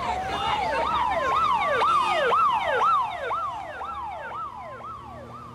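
Two emergency-vehicle sirens sounding at once: one repeats a fast falling sweep, about two or three a second, while the other rises slowly in a long wail. Both fade toward the end.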